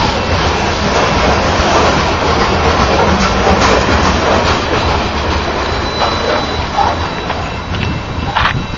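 Covered hopper cars of a freight train rolling past at close range, their steel wheels running loud and steady on the rails with a deep rumble.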